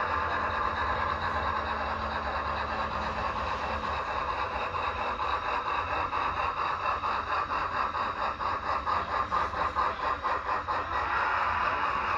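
Model train running along the layout track, with a rapid, regular clicking over a steady running noise.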